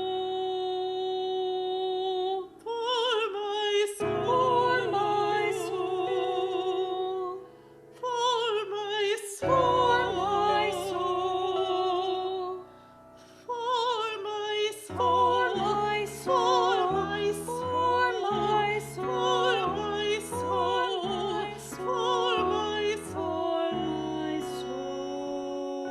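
Slow music: a woman singing long held notes with vibrato over piano accompaniment, the piano's chords coming forward in the last third.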